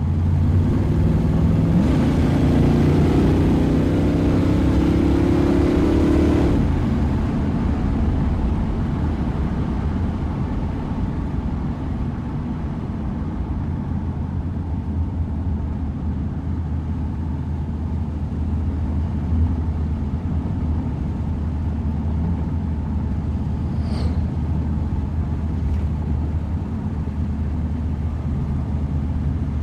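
Ford Mustang engine running, climbing in pitch for the first six seconds or so, then settling into a steady low rumble. A short sharp click sounds once about 24 seconds in.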